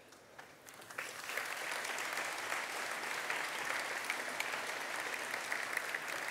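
Audience applauding, setting in about a second in and carrying on steadily.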